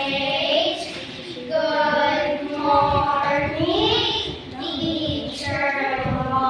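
A high voice singing wordless phrases that slide up and down in pitch, about five phrases with short breaks between them.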